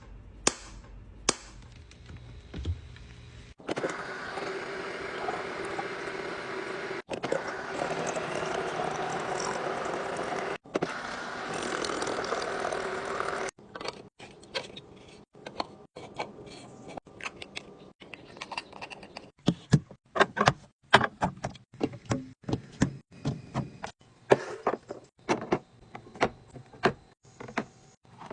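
Food containers and lids being handled while restocking a fridge: a steady rushing sound for about ten seconds, then many quick, irregular clicks and taps of items being opened, closed and set down.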